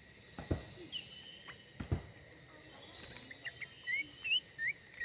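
Small birds chirping: a series of short, rising chirps in quick succession in the second half, with a few soft knocks earlier.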